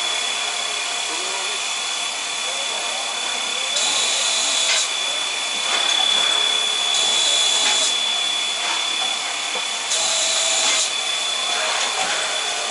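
C58 steam locomotive standing at rest with steam hissing steadily under a thin, steady high whine. Three louder surges of hiss, each about a second long, come roughly three seconds apart.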